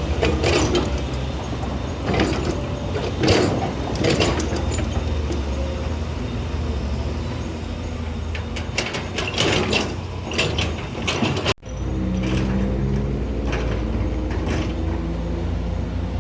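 Heavy diesel construction machinery running, with repeated metallic clanks and knocks. About two-thirds of the way through the sound cuts off abruptly, and a steadier engine drone follows.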